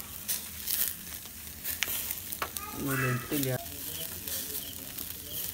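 Marinated alfaham chicken in a wire grill basket sizzling and crackling over glowing coconut-shell embers, with scattered sharp pops. A short voice sound about three seconds in.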